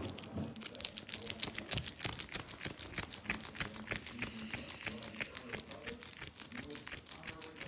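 An Airheads candy bar in its plastic wrapper being rubbed back and forth, making quick rhythmic crinkling and clicking, about five strokes a second.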